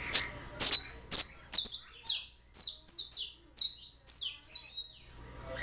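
Domestic canary singing a run of about a dozen loud, high notes, each sliding down in pitch, at roughly two to three a second; the run stops near the end.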